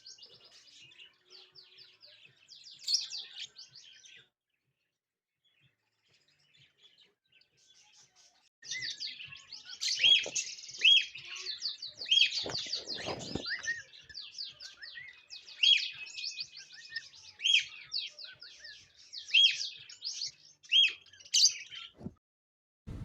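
Small birds chirping and twittering in quick trills of high notes, broken by sharper downward-sliding calls. The chirping stops for a few seconds after about four seconds, then comes back denser and louder from about nine seconds and cuts off suddenly near the end. A brief low rumble sounds in the middle.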